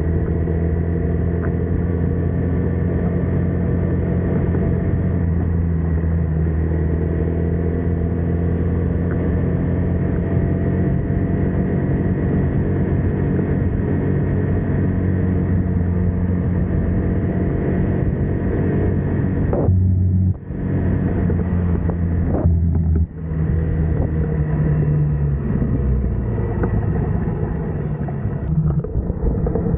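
TVS XL100's small single-cylinder four-stroke engine running steadily, with two brief dips in sound about two-thirds of the way through.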